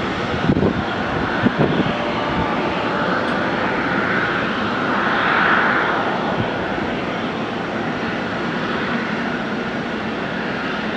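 Twin GE90 turbofans of a Boeing 777-300ER running at low taxi power, a steady jet whine and rush that swells slightly about halfway through. A few brief low bumps sound in the first two seconds.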